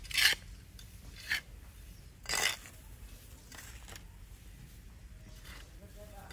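Three short, sharp scrapes about a second apart, the first the loudest, followed by a few fainter ones.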